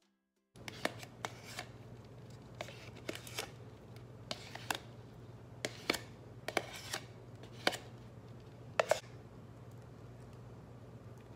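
Kitchen handling sounds: about a dozen irregular clicks, knocks and short scrapes of utensils and containers over a steady low hum.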